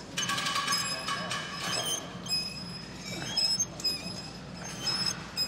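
Metal gym equipment squealing and clinking: a sharp, high squeal starts just after the beginning and lasts about a second, followed by scattered shorter squeaks and clinks.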